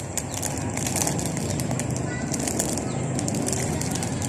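Steady low rumble of outdoor background noise, with faint crinkles from a plastic bag held near the microphone and a brief faint bird chirp about two seconds in.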